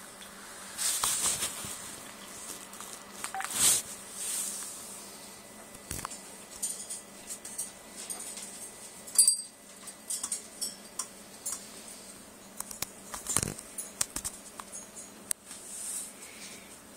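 Scattered small clicks, taps and scrabbling of a blue-crowned conure climbing about its cage and a hanging toy with a bell. A few breaths close to the microphone come and go, around the first, fourth and sixteenth seconds.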